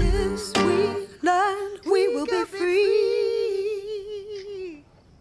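A high solo singing voice sings a line of the song, ending on a long held note with vibrato that fades away about a second before the end, leaving a faint high chirring.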